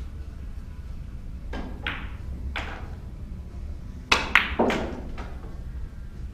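Pool shot: the cue tip strikes the cue ball and balls click sharply together in a quick cluster about four seconds in, after two fainter knocks about two seconds in.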